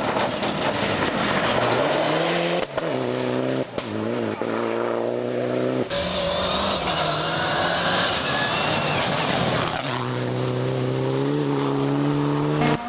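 Rally cars on a gravel stage running hard at high revs, the engine note switching abruptly from one car to the next a few times.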